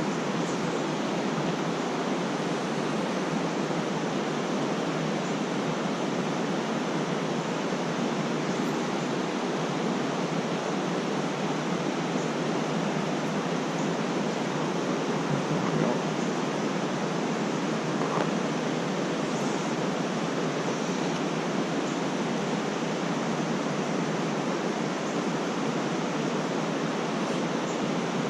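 Steady rush of a fast creek running high, an even noise of flowing water throughout.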